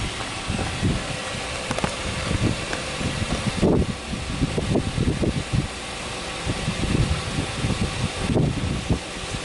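Subaru Legacy B4 3.0R's EZ30 3.0-litre flat-six engine idling with the hood open, a steady running sound with uneven low rumbles swelling and fading.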